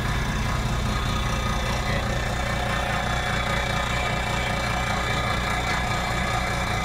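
Boat engine running steadily at constant speed, with a low, even drone.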